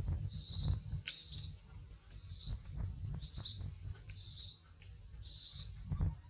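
Short high chirping calls, about one a second, over a low rumble.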